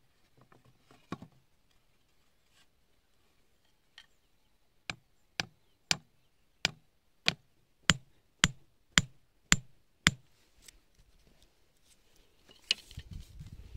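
A tool striking bamboo: about a dozen sharp knocks at roughly two a second, building up over the first few strokes. A rustling, handling noise follows near the end.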